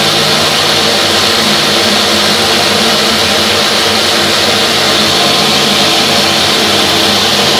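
Countertop blender running steadily with a constant motor hum, whipping mustard and oil into mayonnaise.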